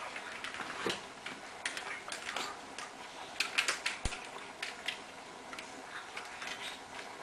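Irregular light clicks and taps from kittens playing with a plastic ball-track cat toy: the ball rattling in the track and paws knocking on the plastic.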